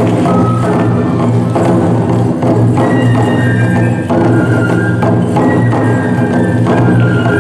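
Toramai (tiger dance) festival music: large taiko drums beaten in a driving pattern, with a high fue flute melody joining about three seconds in.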